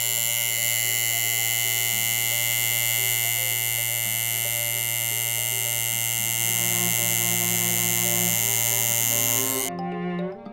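Coil tattoo machine buzzing steadily as its needle tattoos skin, a constant electric buzz that cuts off suddenly near the end.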